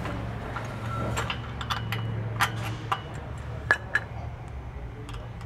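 A handful of sharp metal clinks and taps, scattered irregularly, as a steel sway bar end and its pin hardware are fitted into the mount on a tractor's three-point hitch. A steady low hum runs underneath.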